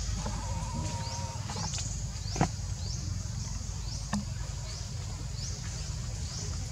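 Forest ambience: a high, rising chirp repeats evenly, a bit under twice a second, over a steady low rumble. Two short sharp clicks stand out, the louder about two and a half seconds in.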